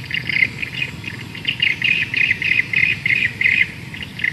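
Countryside ambience: a high chirping call repeated rhythmically, about three to four times a second, loudest in the middle, over a low steady background noise.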